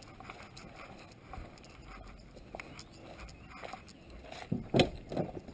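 Quiet outdoor background, then a quick cluster of three or four sharp knocks about four and a half seconds in, the loudest near five seconds.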